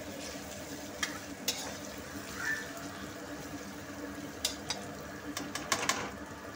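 Sliced onions and green capsicum sizzling in hot oil in a metal kadhai, with a spatula scraping and clicking against the pan a few times, most often near the end.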